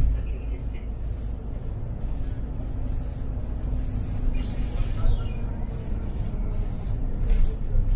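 City bus running, heard from inside: a steady low engine and road rumble with a hum. About halfway through there is a brief high squeal that rises and falls.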